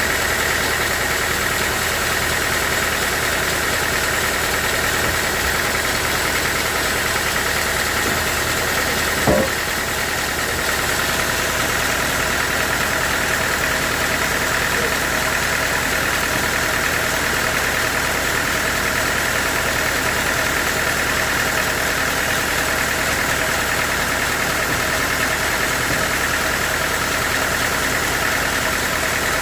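Sawmill machinery running steadily, a constant mechanical drone with a strong band in the upper mids. A single short knock comes about nine seconds in.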